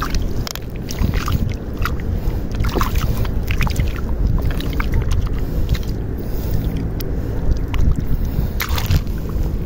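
A hand sloshing and digging through shallow seawater into soft mud, feeling for small clams, with scattered little splashes. Under it runs a steady low rumble of wind on the microphone.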